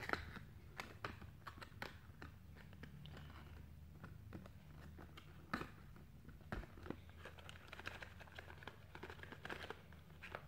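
Small plastic toys and their packaging being handled and put away: scattered faint clicks and crinkles over a low steady hum.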